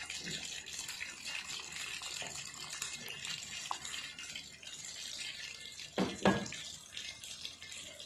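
Tamarind water poured from a glass bowl into a pot of heating vegetable broth, with a steady watery hiss. Two sharp knocks about six seconds in.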